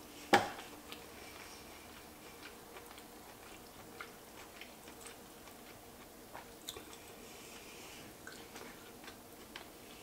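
Someone eating lobster close to the microphone: faint chewing with small, scattered mouth and utensil clicks. There is one sharp knock near the start.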